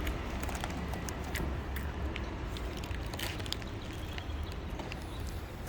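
Outdoor street ambience: a steady low rumble with scattered sharp clicks and taps.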